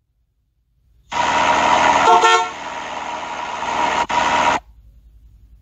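Cartoon sound effect of a taxi: car and traffic noise with a short horn honk about two seconds in.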